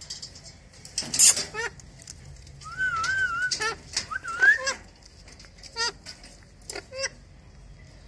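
Caged Alexandrine parakeets squawking and chattering in short, harsh calls, with a wavering whistle about three seconds in and a rising call just after.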